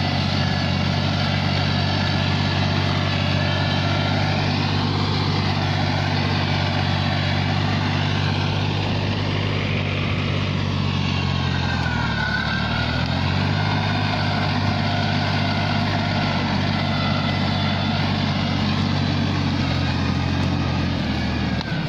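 Massey Ferguson 6028 mini tractor's three-cylinder diesel engine running steadily while ploughing; about twelve seconds in the revs sag briefly and pick up again.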